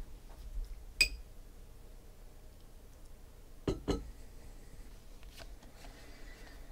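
Trading cards being sorted by hand: a sharp click with a brief ringing clink about a second in, then two quick taps close together near four seconds as cards are set down on a stack, with soft handling noise between.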